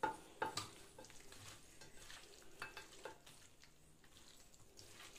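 A hand squishing and turning raw chicken pieces in a wet chilli-powder and ginger-garlic marinade in a stainless steel bowl: soft, irregular squelches and clicks. A few louder ones come in the first second and about three seconds in, and they grow fainter toward the end.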